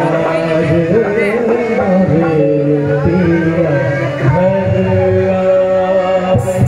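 Male vocalist singing a song live into a microphone over a PA, with instrumental accompaniment holding long steady notes.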